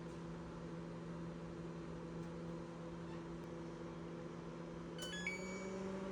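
Microwave oven running with a steady hum, heating again now that its faulty door micro switch has been replaced. About five seconds in, a short run of stepped electronic tones ends on a held note.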